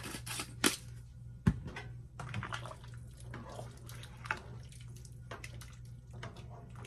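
Vegetable soup being stirred in a pan with a plastic spoon: broth sloshing and the spoon scraping and knocking against the pan, with a sharp knock about one and a half seconds in.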